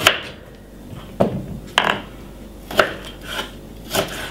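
Knife cutting a piece of fresh ginger on a wooden chopping board: a handful of sharp knocks at uneven spacing, roughly one a second.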